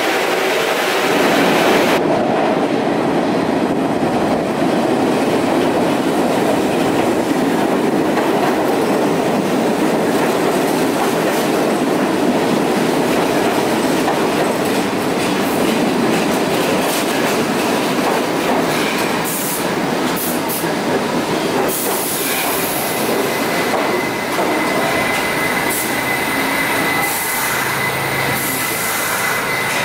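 New York City Subway R68 train moving along the platform in an underground station: a steady loud rumble and rattle of wheels on rail. A thin, high wheel squeal comes in past the middle.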